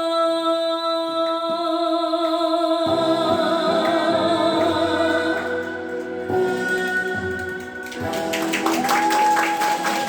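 Closing of a Korean fusion gugak song: a singer holds a long final note with vibrato over instrumental backing, and the music ends about eight seconds in, followed by applause.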